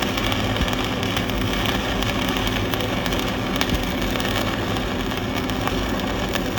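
Stick (shielded metal arc) welding arc crackling and sizzling steadily while the cap pass of a fillet weld is laid, with a faint steady hum under it.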